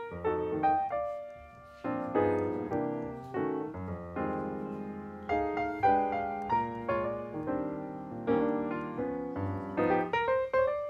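Background piano music: a stream of struck notes that ring and die away, with a brief lull about a second and a half in.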